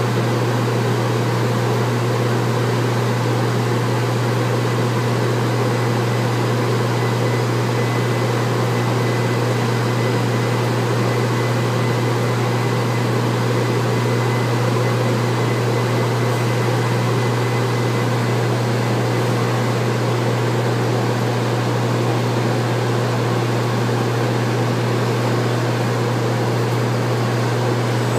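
A straw-handling machine running steadily, a constant low mechanical hum with a rushing noise over it that does not change.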